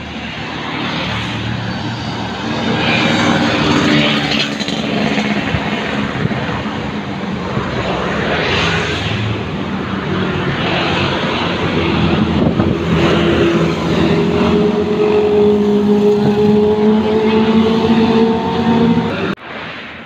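Road traffic passing close by: motorcycles and cars swell past one after another. In the second half an engine accelerates steadily, its pitch rising slowly for several seconds, before the sound cuts off abruptly near the end.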